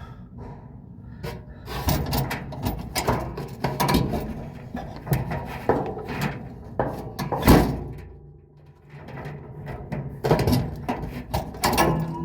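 Irregular clicks, knocks and scrapes of clothes-dryer parts being handled as the drive belt is routed over the idler pulley, with one louder knock about seven and a half seconds in.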